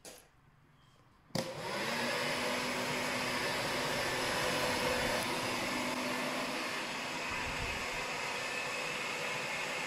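An old hair dryer built into a homemade sanitizer fogging machine switches on abruptly about a second in and runs steadily on its cool setting, a rush of blown air with a faint steady hum.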